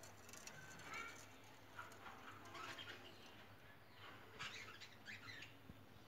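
Faint, scattered short chirps from caged lovebirds, a few soft calls spread over several seconds against a quiet background.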